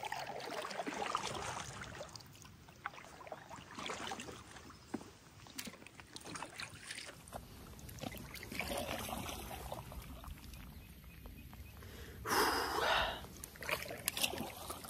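Kayak paddle strokes swishing and dipping through lake water, about five strokes a couple of seconds apart, the loudest near the end, over light rain pattering on the water.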